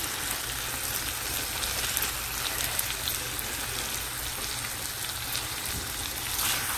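Canned corned beef, kidney beans and bell pepper sizzling in oil in a frying pan: a steady frying hiss with scattered small crackles.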